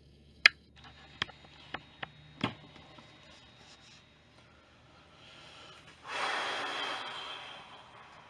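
Five sharp knocks or clicks in the first two and a half seconds, the first the loudest, then a rushing hiss lasting about a second and a half.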